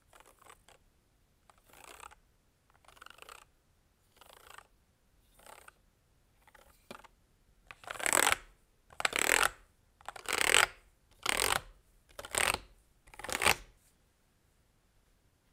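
Keys being pressed on a MelGeek Cyber01 mechanical keyboard fitted with lubricated Gateron Magnetic White linear magnetic switches. The clatters come in short bursts about once a second, fainter at first and much louder from about eight seconds in.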